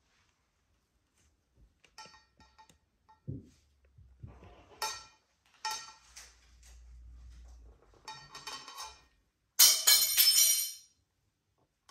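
White ceramic plate and metal fork clinking on a stone benchtop as a red-tailed black cockatoo pecks at and shoves the plate with its beak: scattered clinks with a ringing tone, then a louder ringing clatter about ten seconds in.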